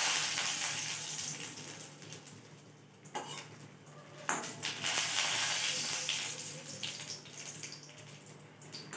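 Dried lentil nuggets (bori) sizzling in hot oil in a metal wok, stirred with a wet metal spatula, with a light scrape or tap of the spatula on the wok. The hiss swells right at the start and again about halfway through: water on the spatula is hitting the hot oil.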